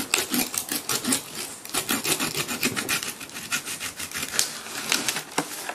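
A knife sawing through the thick plastic of a bleach bottle used as a mould, cutting it off a hardened cement vase: a continuous run of quick rasping, scraping strokes.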